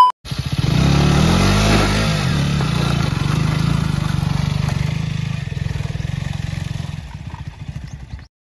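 KTM RC sportbike's single-cylinder engine revving as the bike climbs over rocks, its pitch rising about a second in, then running steadily and fading away near the end.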